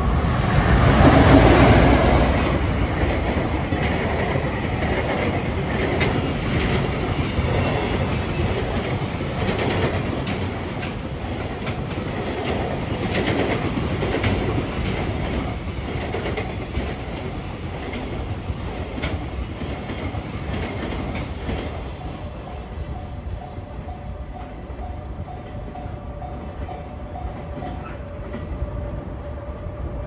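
JR Freight EF510 electric locomotive passing close, loudest about a second or two in, followed by a long train of container wagons clattering over the rail joints. The sound grows quieter after about twenty seconds as the train moves away.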